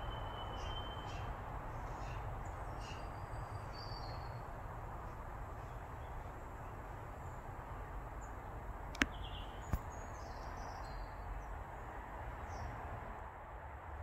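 Small garden birds calling: scattered short high chirps and brief whistles, one a short trill, over a steady outdoor background hiss. Two sharp clicks come about nine seconds in, less than a second apart.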